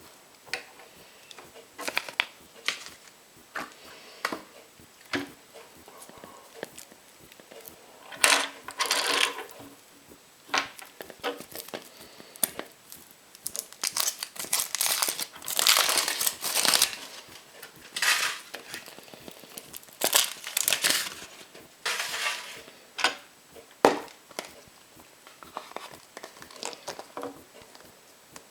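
A chocolate surprise egg's wrapper crinkling and tearing in repeated bursts as it is unwrapped, between small sharp clicks and taps.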